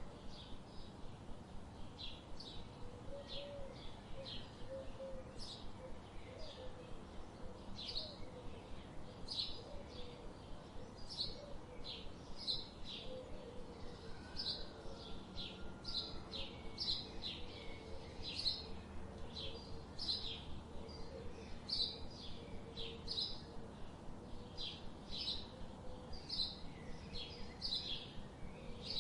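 Small birds chirping continuously: short, high chirps repeating two or three times a second. A softer, lower warbling call runs underneath.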